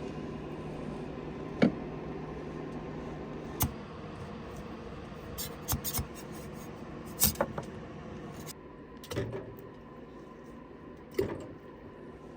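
Several sharp clicks and taps, spaced a second or two apart, over a steady low hum that drops a little about two-thirds of the way in.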